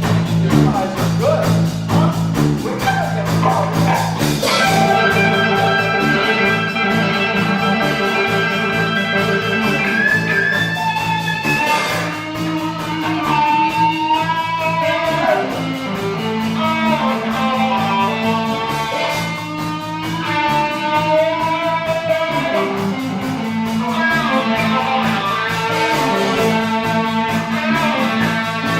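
Live blues band playing: an electric guitar lead with held and bending notes over a repeating bass line and drums.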